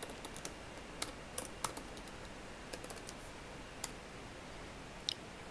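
Typing on a computer keyboard: light, irregular key clicks, thicker in the first couple of seconds, then a few scattered ones.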